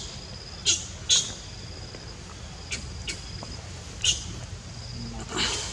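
A series of short, high-pitched animal chirps, about six, spaced unevenly, the last one near the end the longest and loudest. Under them run a thin steady high tone that comes and goes and a low rumble.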